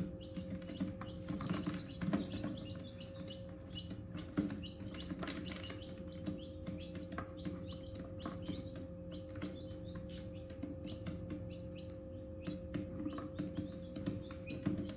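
Newly hatched chicks peeping: many short, high cheeps overlapping, over a steady hum from the egg incubator.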